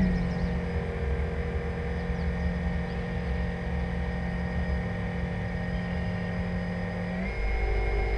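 An RC model container ship's drive motor whining steadily under way, with a low rumble of water and wash beneath it. About seven seconds in, the whine steps up in pitch and gets louder as the motor speeds up.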